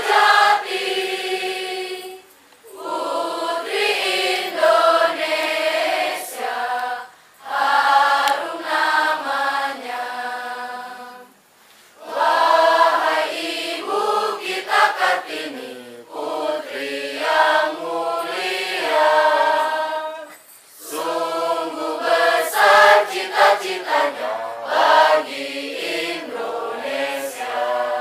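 A large group of school students singing together as a choir, in long phrases broken by short pauses for breath.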